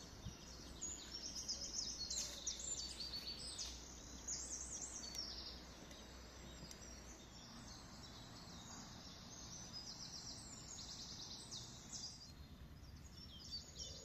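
Faint woodland birdsong: small songbirds singing high, quick trilling phrases, densest over the first five seconds and returning more weakly later on.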